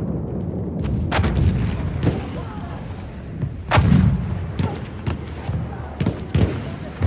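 Battlefield sound effect: scattered gunshots cracking over a continuous low rumble of artillery fire, with a heavier boom about four seconds in.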